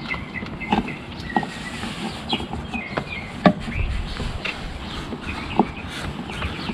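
Scattered clicks and knocks of a shower hose and its fitting being handled and connected, with birds chirping in the background.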